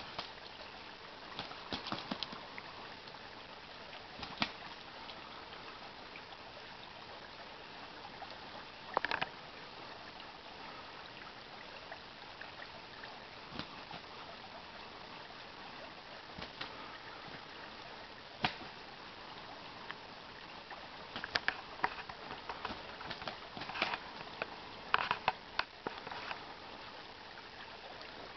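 Shallow creek running steadily over a gravel riffle, with scattered sharp splashes and wing flaps from two mallard drakes fighting in the water, coming thicker toward the end.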